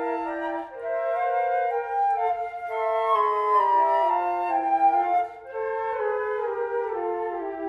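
Quartet of concert flutes playing a lively classical piece together, several parts in harmony moving note by note, with two brief breaks, one under a second in and one about five seconds in.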